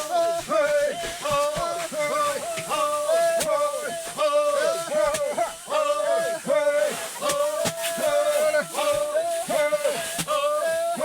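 Background music with a short melody repeating over and over.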